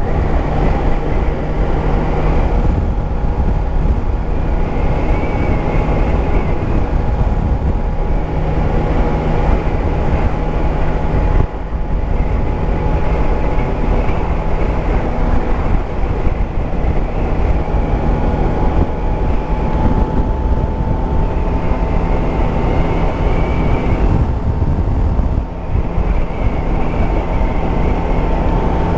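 Yamaha Tracer 9 GT's three-cylinder engine running at a steady cruise, with the rush of wind over a helmet-camera microphone.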